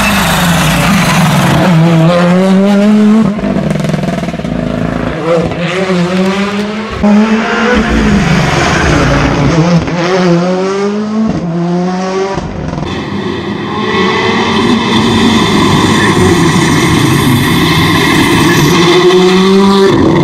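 Hyundai i20 rally car's engine heard from inside the car, revs climbing and dropping again and again through gear changes, then held at a steady pitch from about thirteen seconds in.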